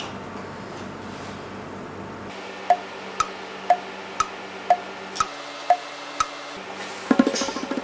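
Clock tick-tock sound effect: eight sharp ticks about two a second, alternating between a lower and a higher pitch, over a steady sustained background tone. It is followed near the end by a brief louder, busier sound.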